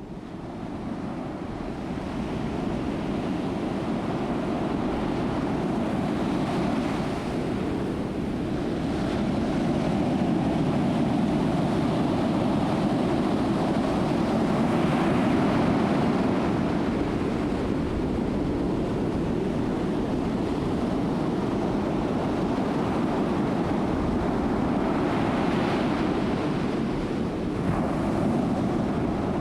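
Ocean surf: a continuous wash of waves that swells louder a few times as waves break.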